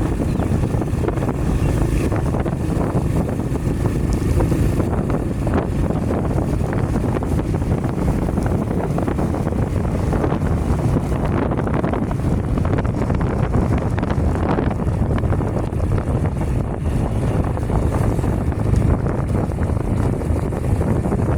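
Wind buffeting the microphone over a steady low rumble, unchanging throughout.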